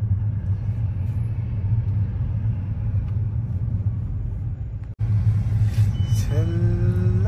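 Steady low road rumble inside a moving car's cabin. It breaks off for an instant about five seconds in, and a sung melody comes in near the end.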